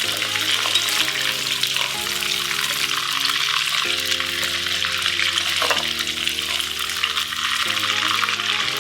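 Chicken pieces sizzling in hot oil, a steady crackling hiss with fine rapid pops, over soft background music with held chords that change about once a second.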